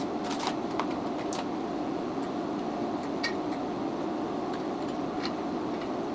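Steel rack parts clinking as they are handled during assembly: a few sharp metallic clicks, several close together in the first second and a half, then single ones about three and five seconds in, over a steady background hum.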